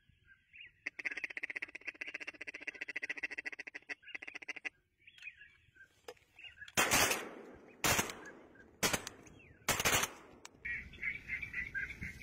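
A rapid, steady run of duck quacking, then four shotgun blasts about a second apart, the loudest sounds, followed by more quacking near the end.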